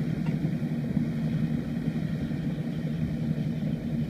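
An engine running steadily at an even pitch, with no change in speed.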